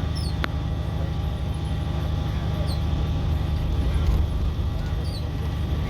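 Steady low rumble of a moving bus heard from inside the cabin, with a sharp click about half a second in and faint, scattered high squeaks.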